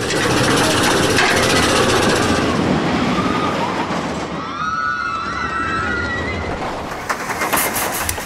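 A Vekoma steel roller coaster train running along its track with a loud, rattling rumble. Wavering high-pitched squeals come in about halfway through, and a few sharp clicks follow near the end.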